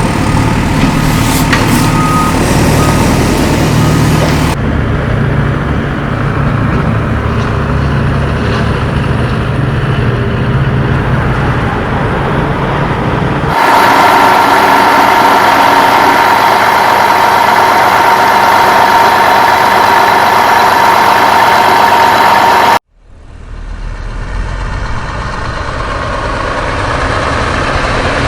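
Truck engine sounds running steadily in spliced segments that change abruptly a few times. A steady high whine runs through the middle stretch. A short cutout comes near the end, after which a deep engine rumble builds back up.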